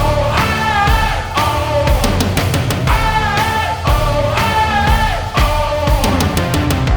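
Heavy rock music: a short pitched riff repeating about once a second over a steady drum beat.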